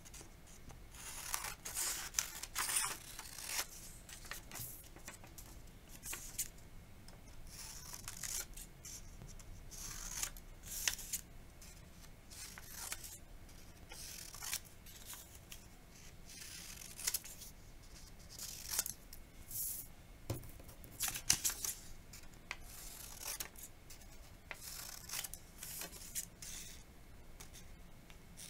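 Scissors cutting down columns of a paper sheet: a string of short, crisp snips at an uneven pace, some closely bunched, others a second or more apart.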